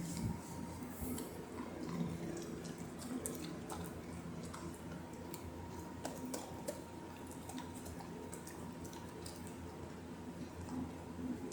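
A dog chewing a soft Beggin' Strip treat: faint, irregular smacking and clicking mouth sounds.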